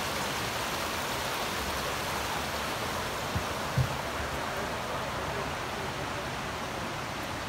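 Steady rush of a mountain creek and waterfall. Two soft thumps come about three and a half seconds in.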